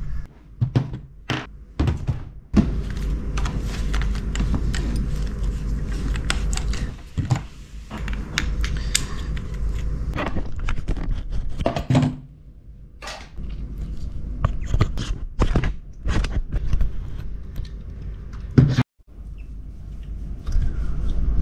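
Close handling of plastic camera mounts and tripod parts: repeated sharp clicks, knocks and scrapes over a steady low rumble of handling noise, with a brief drop-out near the end.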